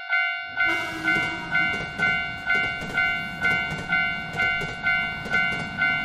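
Japanese railroad crossing alarm bell ringing 'kan-kan' about twice a second, each strike ringing on with a steady tone, while a train rushes past underneath with a rumble and rapid clacking of wheels on the rails.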